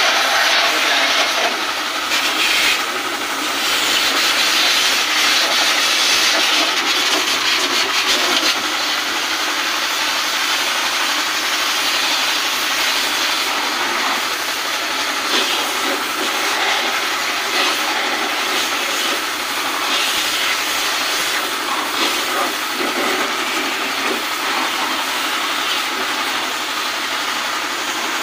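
Water jet from a hose spraying onto a window-type air conditioner's coil fins, a steady hiss that is a little louder for the first several seconds.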